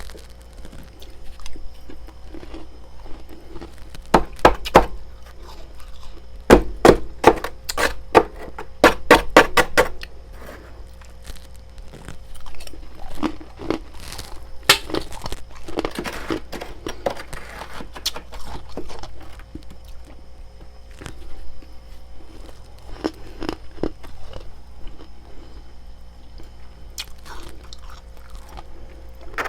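A person biting and chewing frost ice: clusters of sharp, loud crunches about four, seven to ten and fifteen seconds in, with softer chewing crunches between and after.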